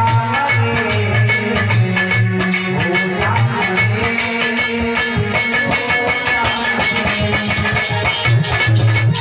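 Instrumental music of a devotional song with a steady beat: pitched melody lines over a repeating bass and percussion, no singing.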